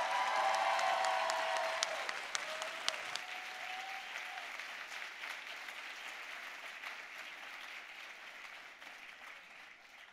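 A large audience applauding, loudest at first and slowly dying away toward the end.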